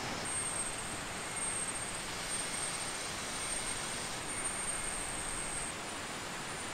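River water rushing steadily, an even hiss of flowing water, with a thin, high steady tone running over it that shifts near the end.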